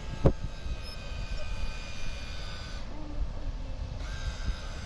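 Flytec HQ2011 RC boat's small electric motor whining steadily, cutting out about three seconds in and starting again about a second later. Low wind noise on the microphone underneath, and a single thump just after the start.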